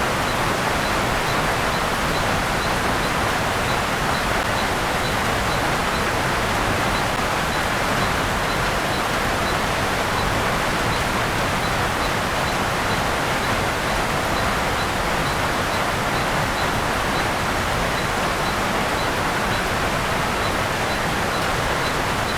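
Steady tropical rain falling on the rainforest vegetation, an even hiss that does not change. A faint high chirp repeats evenly about twice a second behind it.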